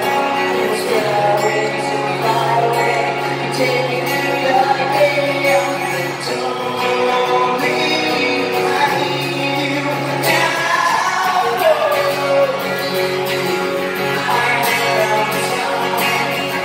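Live band performance: amplified acoustic guitar with a man singing lead over the PA.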